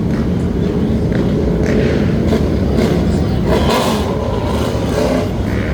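Motorcycle engines running loudly with a steady low rumble. A brief louder burst comes a little past halfway through.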